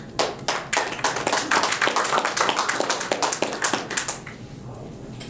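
A small audience clapping for about four seconds, then tapering off.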